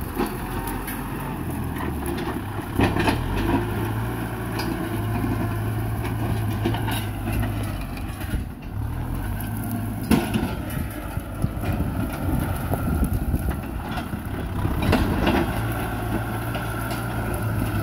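Kubota M6040 tractor's diesel engine running under load as it pulls a disc plough through dry, brushy ground. Its note shifts a little and dips briefly near the middle, with scattered sharp cracks as the discs break dry stalks and roots.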